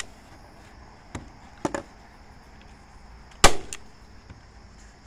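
A staple gun firing a staple into a wooden frame strip: one sharp crack about three and a half seconds in, after a couple of lighter clicks.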